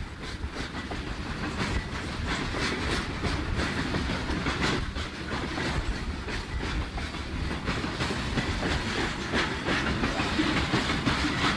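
Freight train of coal hopper cars rolling past close by: a steady rumble from the wheels and trucks, with repeated clacks as the wheels cross rail joints.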